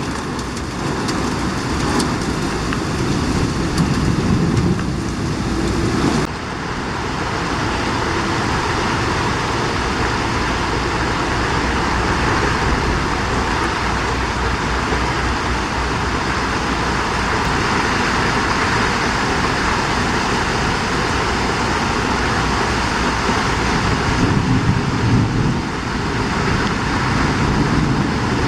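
Heavy thunderstorm rain pouring down steadily, its sound changing abruptly about six seconds in; a low rumble swells up twice, near the start and near the end.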